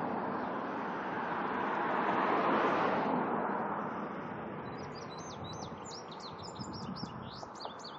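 A vehicle passing on the road, its noise swelling to a peak about two and a half seconds in and then fading away. Over the second half, a songbird sings a quick series of high chirps and whistles.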